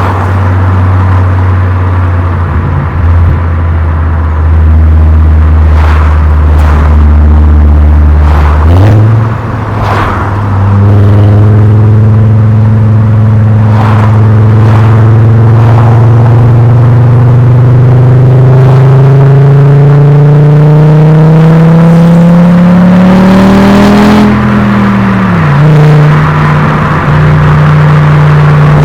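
Volkswagen Golf Mk4 VR5's five-cylinder V5 engine heard at the exhaust while driving. It holds a steady drone, the note jumps about nine seconds in, then the pitch climbs slowly and steadily under acceleration for over ten seconds. Near the end the pitch drops quickly and settles into a steady cruising note.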